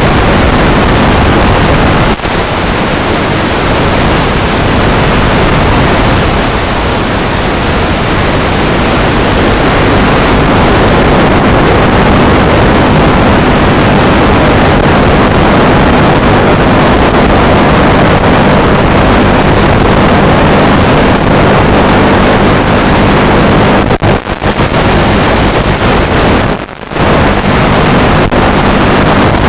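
Onboard audio of an FPV drone in flight: loud, steady rushing noise of wind and propellers on the microphone with a steady low motor hum, dipping briefly twice near the end.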